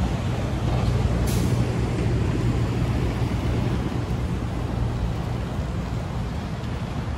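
Steady wind rumble on the microphone of a moving bicycle, with a brief hiss about a second in.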